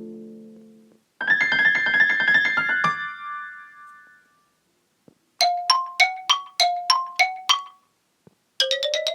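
Old iPhone ringtones played in turn, electronic keyboard-like tones. A low chord fades out, then a quick run of repeated bright notes ends on a held high note that dies away. After a click, a short two-note figure repeats several times, and after another click a rising run of notes begins near the end.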